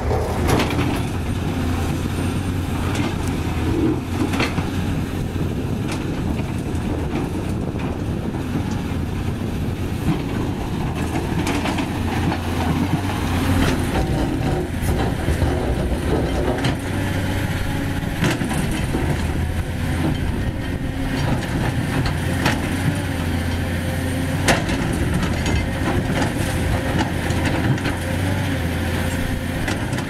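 Hydraulic crawler excavator's diesel engine running steadily under digging load, with scattered clanks and knocks as the steel bucket scrapes into rocky dirt.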